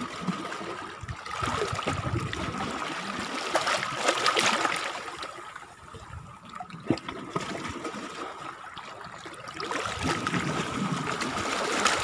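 Shallow seawater trickling and lapping among rocks, rising and falling in swells, with a few sharp clicks.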